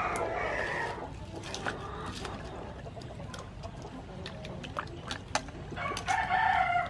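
Hands washing peeled watermelons in a metal bowl of water: small splashes and knocks of the fruit against the bowl. An animal calls in the first second and again near the end.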